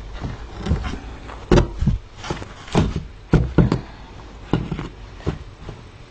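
Handling noise close to the microphone: about a dozen irregular thumps and knocks with fabric rustling as a fleece blanket is pushed and tucked into place by hand. The loudest knocks come about one and a half and three and a half seconds in.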